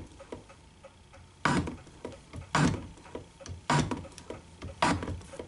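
Shop-built hand shaper cutting a key slot in a 1018 steel block: four sharp cutting strokes of the tool bit, about a second apart. Each pass still removes metal without the dial being advanced, which the machinist takes for spring in the cut. A faint steady ticking runs underneath.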